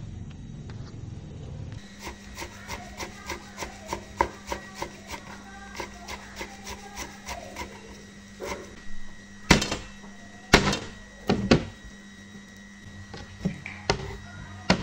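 Kitchen knife chopping leafy herbs on a cutting board: quick, even strikes of the blade on the board, about three a second, with a few heavier chops near the middle.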